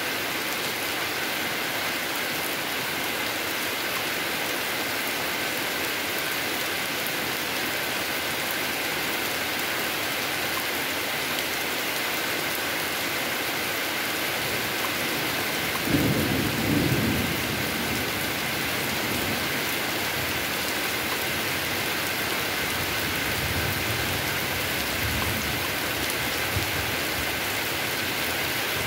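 Heavy rain falling steadily on an asphalt road and roadside trees, with a low rumble of thunder about halfway through that fades out over several seconds.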